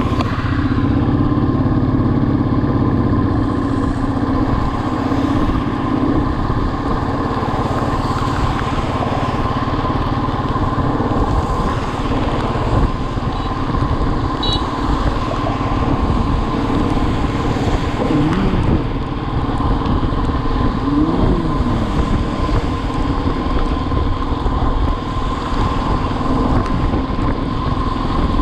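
Motorcycle engine running steadily while riding at speed, with a continuous rush of road and wind noise. Two short tones glide up and back down in the second half.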